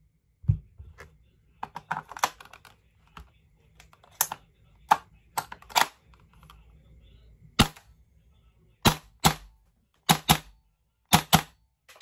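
GHK G5 gas blowback airsoft rifle test-fired semi-auto after new magazine O-rings, about ten sharp cracks, each with the bolt's clack, some single and some in quick pairs. Before the shots come a knock as the magazine goes in and a few handling clicks.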